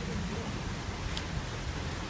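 Kuranda Scenic Railway train running, a steady rumble and hiss of the carriage on the rails, with a single light click about a second in.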